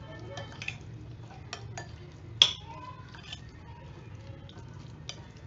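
Marinated chicken pieces being stirred in a glass bowl, with scattered clinks against the glass, the loudest about two and a half seconds in, over a low steady hum.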